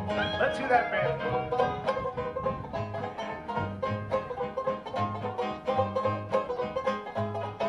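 A banjo band playing a lively tune: quick plucked banjo notes over a steady, repeating bass line.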